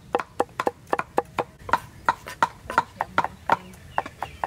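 Steel cleaver chopping garlic on a wooden chopping block: a fast, steady run of sharp knocks, about four a second.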